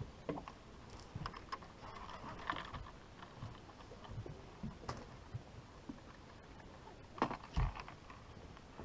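Scattered knocks and rustles of an angler handling his rod and gear aboard a small boat, with a heavier thump about seven and a half seconds in.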